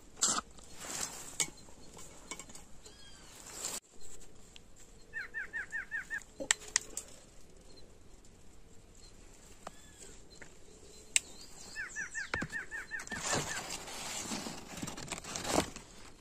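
Birds calling: a bird gives a quick run of short, evenly spaced notes twice, about six notes then about ten, among a few other single calls. Scattered sharp clicks and a rustling noise come near the end.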